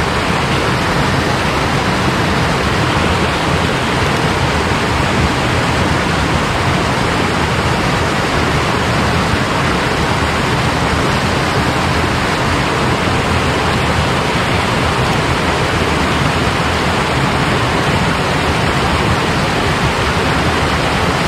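Mountain stream water rushing steadily, a loud even roar with no break or change.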